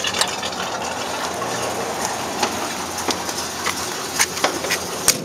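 Chevrolet 327 small-block V8 idling, heard at its tailpipe as a steady exhaust note, with a few scattered clicks.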